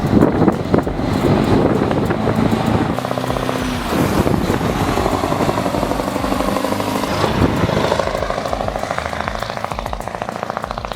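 Mack Super-Liner truck's V8 diesel engine running hard under a heavy load. The engine note changes about four seconds in.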